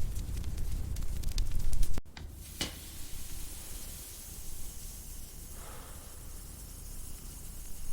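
Crackling fire, sharp pops over a low rumble, for about two seconds. Then an abrupt cut to a quieter steady hiss with a single click.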